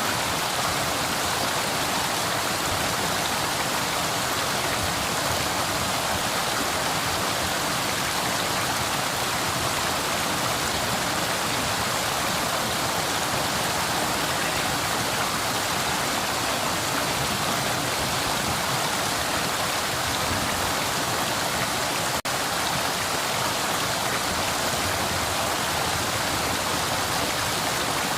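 River water flowing steadily in an even, unbroken rush, with one momentary dropout about three-quarters of the way through.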